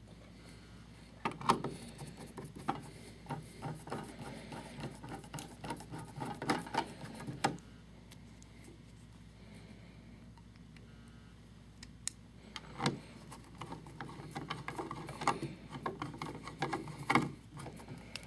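Screwdriver driving the two small screws of a light-switch cover plate: scattered light clicks and scrapes of the tool on the screws and plate, in two spells with a quieter pause of a few seconds in the middle.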